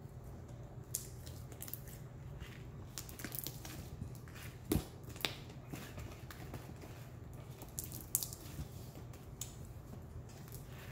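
Blue glitter slime made from Elmer's glue being stretched and kneaded by hand, giving irregular sticky clicks and small pops, two of them louder about a third and two thirds of the way in, over a steady low hum.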